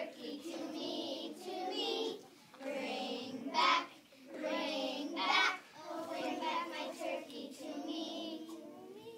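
A group of young children singing a song together in unison, in short phrases with brief pauses between them.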